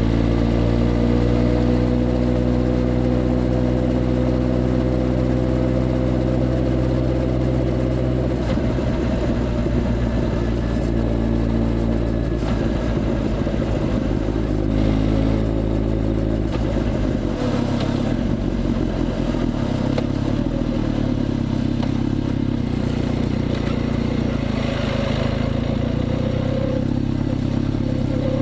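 Motorcycle engine running steadily while riding, its note shifting about eight seconds in and again after about seventeen seconds.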